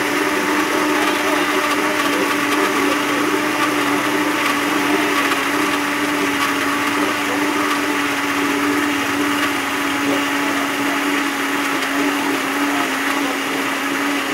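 Electric blender running steadily at full speed, a constant motor whine over the churn of its contents.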